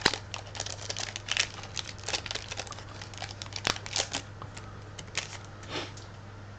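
Foil Pokémon booster pack wrapper crinkling as it is opened, a dense run of crackles for about four seconds, then a few scattered ones.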